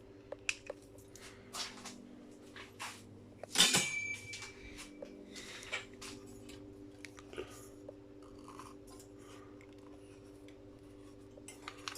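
Scrap brass light-fitting parts being handled and worked with hand tools: scattered small metallic clicks and snips, and one louder metal clank a little under four seconds in that rings briefly. A steady low hum runs underneath.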